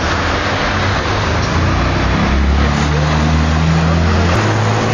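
Loud, steady rushing noise from street traffic, with the low hum of idling car engines underneath that shifts pitch near the end.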